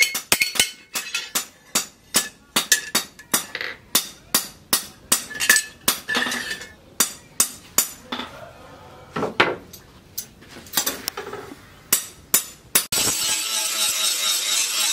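Hammer blows on a steel cleaver blade, cut from a tractor disc-plough disc, resting on a steel-post anvil: sharp ringing metallic clinks, about two to three a second, spacing out past the middle. Near the end it cuts to an angle grinder grinding the steel blade, a steady grinding noise.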